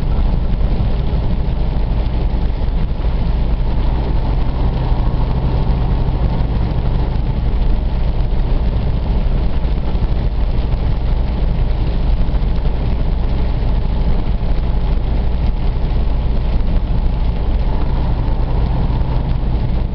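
Steady drone inside a truck's cab at highway speed: the engine's low hum under the rush of tyres on a wet road.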